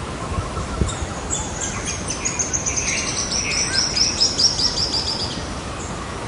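A small songbird singing a long, fast trill of high repeated notes that falls slightly in pitch and stops near the end, over a steady wash of sea surf.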